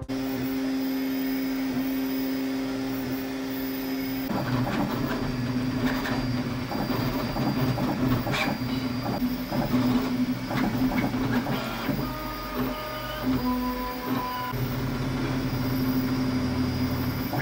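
Creality FDM 3D printer printing an ABS phone case: a steady hum with shifting machine tones and ticks as the print head moves, busier from about four seconds in.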